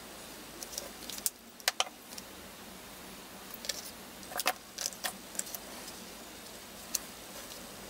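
Small, sharp clicks and clinks of plastic marker pens and their caps being handled, in irregular clusters: a pair about a second and a half in, several around the middle and one more near the end.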